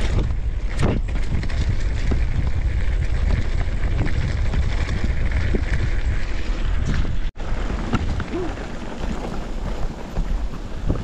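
Wind buffeting the microphone with a steady low rumble, typical of a camera riding along on a mountain bike over a trail; the sound drops out for an instant a little past seven seconds in.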